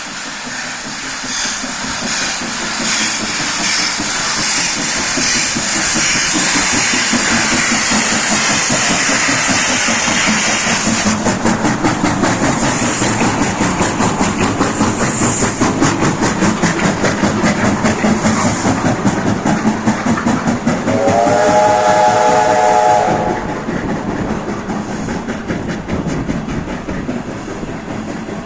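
A steam-hauled passenger train, led by a P36 steam locomotive, passes close by: first a loud hissing rush, then the carriages' wheels clattering rapidly over the rail joints. About three-quarters of the way through, a multi-note whistle or horn sounds for about two seconds. The noise then eases as the train moves away.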